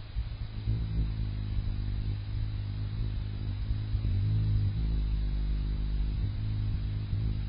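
Ruby-throated hummingbird's wings humming close by as it hovers and feeds: a steady low hum that wavers slightly in pitch a few times.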